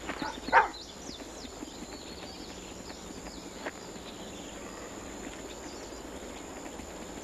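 A single short, loud animal cry about half a second in, from a wolf struggling with a musk ox. After it comes a steady outdoor background with faint high bird chirps.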